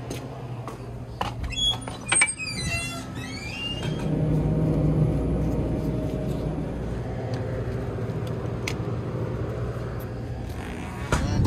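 Convenience-store interior ambience with a steady low hum, handling noises and a few light clicks, and a short run of high tones between about one and three seconds in.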